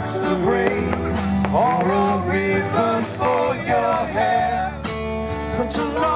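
Music: a song with guitar and a singing voice over a steady bass line.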